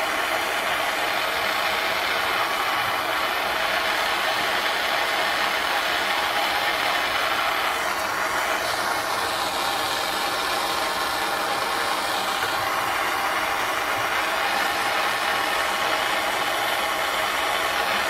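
Jeweller's gas torch flame hissing steadily, played on a metal belt buckle blank to heat it until the solder flows around the rope border.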